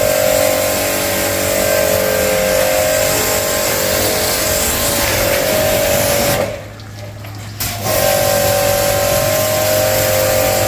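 AGARO Supreme 1800 W electric pressure washer running, its motor humming under the loud hiss of the water jet as shampoo foam is sprayed. About two-thirds of the way through, motor and spray stop for a second or so, as the gun's trigger is let go, then start again.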